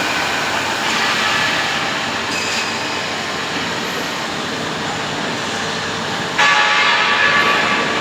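Awea LG5030 double-column CNC machining centre cutting metal: a steady hiss and whine of the spindle and cutter, with a louder high-pitched metallic squeal starting suddenly about six and a half seconds in and lasting over a second.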